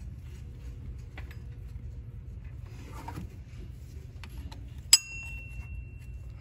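Faint scattered clicks of metal parts being handled, then about five seconds in a single sharp clink of a metal hand tool striking metal, which rings on for over a second, over a steady low hum.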